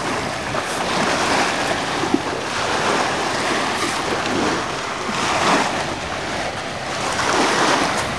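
Small waves washing in on the shore, swelling and easing every second or two, with wind on the microphone.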